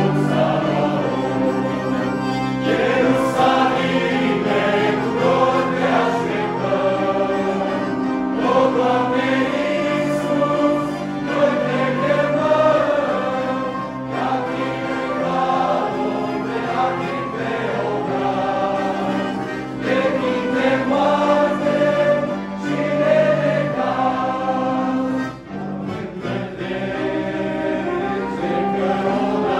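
A choir of young men singing a hymn in Romanian, accompanied by several piano accordions playing held chords.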